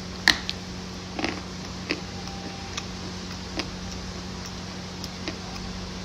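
Crunchy food being bitten and chewed: short, sharp crunches at irregular intervals, the loudest about a third of a second in, over a steady fan hum.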